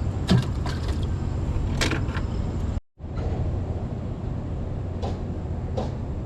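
Steady low rumble with several sharp clicks and knocks over it. The sound drops out for an instant a little before the middle.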